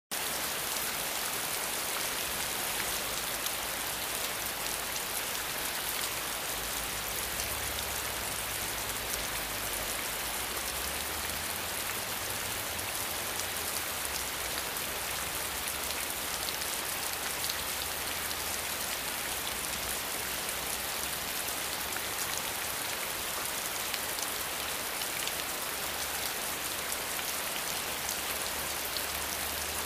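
Steady rain falling on leaves: an even hiss with faint scattered drop ticks.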